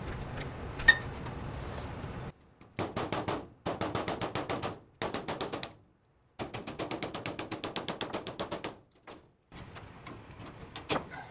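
Rapid hammer strikes on a hand tool held against a galvanized sheet-metal duct, punching a hole into it, in several runs of about nine blows a second with short pauses between. A single sharp click comes about a second in, over a steady low rumble.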